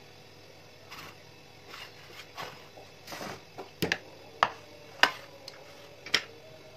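Soft rustling of raw vegetable slices being shifted by hand in a glass baking dish, then about five sharp knocks in the second half as a plate and the glass dish are set down and moved on a stone countertop.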